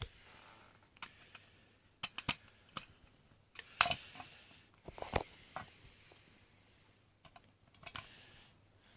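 Irregular clicks and taps of small parts of a spring-powered airsoft pistol being handled and fitted back into its frame, with a few louder knocks among them.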